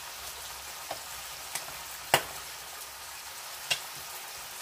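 Egg frying in a pan, a steady sizzle, with four sharp clicks over it, the loudest about two seconds in.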